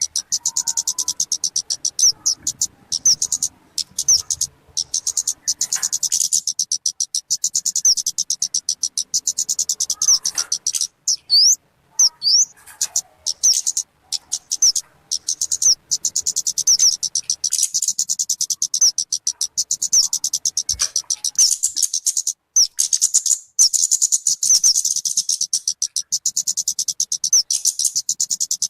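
Talokan (kemade) bird calling in a fast, steady run of high-pitched repeated notes, broken by a few short pauses and some quick upward-sweeping notes.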